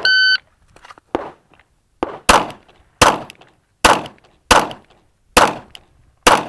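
Shot-timer start beep, then a string of about seven 9mm shots from a Glock 19 pistol, fired roughly half a second to a second apart.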